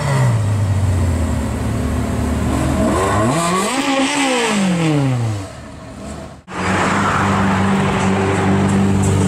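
Supercar engine running steadily, then revved once, its pitch climbing and falling back over about two seconds. About six and a half seconds in, a hard cut leads into a different steady, even-pitched sound.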